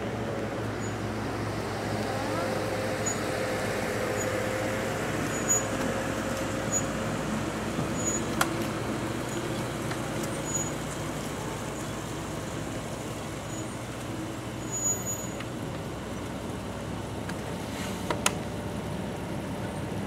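Steady low hum of motor vehicle noise, with a faint, short, high peep repeating roughly once a second and two sharp clicks, about eight seconds in and near the end.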